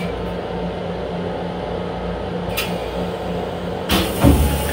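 Long Island Rail Road M7 electric train car's steady running hum and rumble, heard inside its small restroom, with a faint click a little past halfway. Near the end comes a sudden hiss with a low thump, the loudest sound here.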